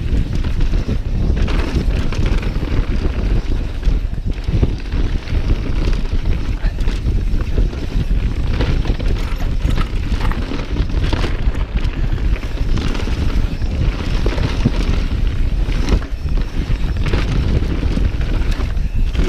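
Mountain bike rolling fast down a dirt trail: tyre rumble and steady rattling and knocking from the bike over bumps, with wind rushing over the microphone.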